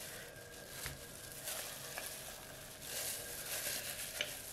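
Wet ground chicken mince being scraped and spooned onto a ceramic plate: a continuous moist hissing, squelching noise with a few light clicks.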